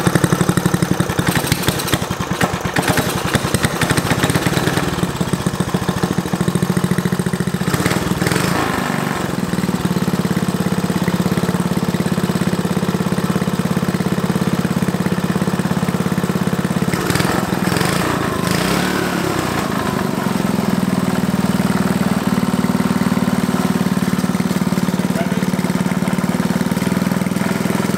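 Freshly rebuilt 5 hp Briggs & Stratton single-cylinder flathead engine running just after starting. It runs unevenly for the first few seconds, then settles into a steady run. The speed briefly rises and falls about 8 seconds in and again a little past the middle.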